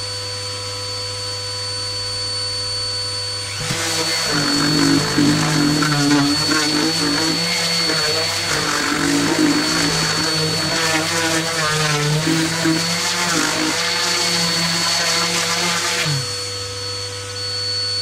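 Dust extractor running steadily, pulling air down through a downdraft sanding box. About four seconds in, a random orbital sander starts on a wooden end-grain cutting board and sands until about sixteen seconds in, then winds down and stops while the extractor keeps running.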